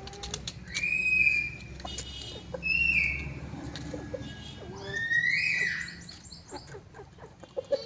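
Asil roosters crowing: three short crows, each about a second long and roughly two seconds apart, with a few sharp clicks before the first.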